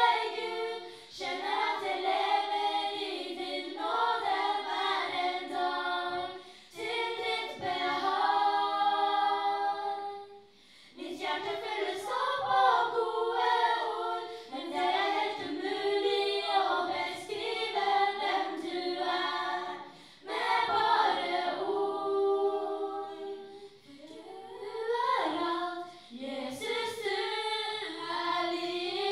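A small group of young women's voices singing together a cappella into handheld microphones, amplified through a PA, in phrases with short breaks between them.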